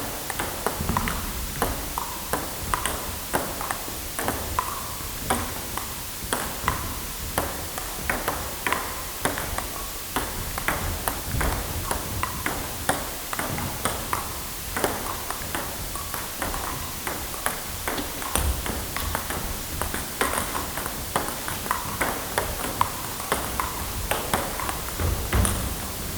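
Sports practice ambience: many irregular sharp hits and pings, several a second, over a steady low room rumble.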